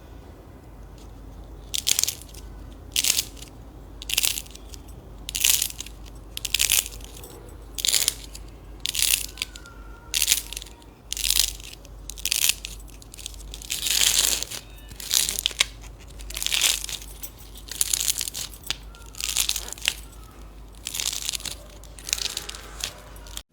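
Slime being pressed and squeezed by hand, giving a short crackly, crunchy burst roughly once a second, starting about two seconds in.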